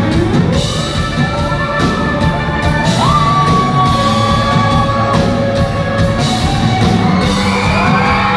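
Live rock band playing with singing, amid an audience in a large hall yelling and whooping along.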